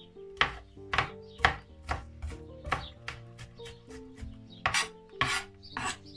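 Chef's knife chopping garlic on a cutting board, about two knocks a second, with a few louder strokes near the end.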